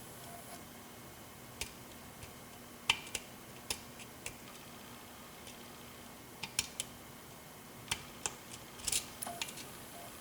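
Small, irregular metallic clicks and ticks from lock picks working the pin stack of a 7-pin Corbin Russwin mortise cylinder, the loudest about three seconds in and a quick cluster near the end.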